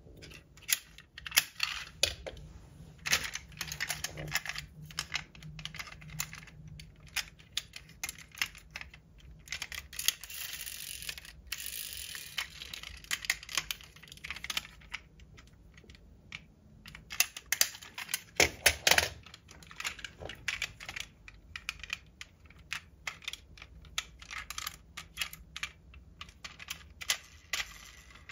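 Die-cast metal toy cars handled at close range: a run of small clicks and taps as their opening doors are snapped open and shut and the cars clink against each other, with a louder clatter a little after halfway.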